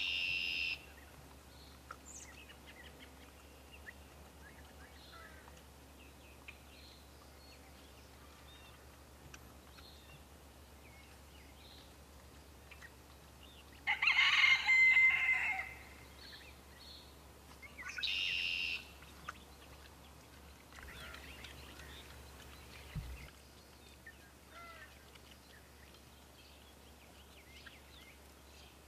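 A rooster crows once, a call of about two seconds about halfway through. Two shorter high calls come near the start and a few seconds after the crow, with faint small-bird chirps throughout.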